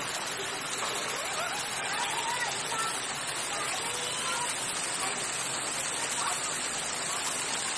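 Faint, distant voices of people talking over a steady rushing noise.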